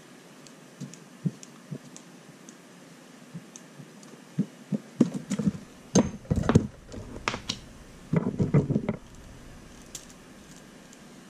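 Small tools and parts handled on a tabletop during hobby assembly: scattered light clicks, then from about four seconds in a cluster of louder knocks and clattering that stops about nine seconds in.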